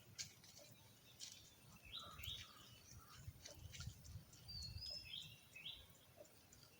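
Faint outdoor ambience of a few small bird chirps: short rising notes in two clusters, about two and five seconds in. Scattered faint ticks and a low rumble run beneath them, the sharpest tick right at the start.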